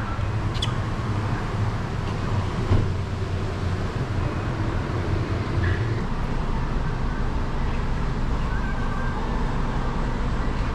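Motorcycle engine idling steadily, with a single knock about three seconds in.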